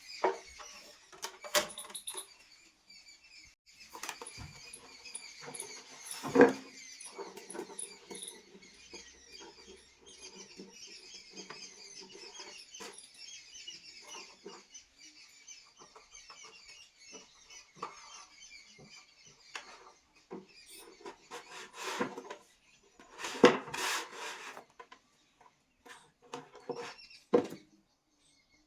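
Small objects being handled: scratching and clicking, with a few louder knocks, the loudest about six seconds in and again around twenty-three seconds. A faint, rapid high chittering runs underneath for the first twenty seconds or so.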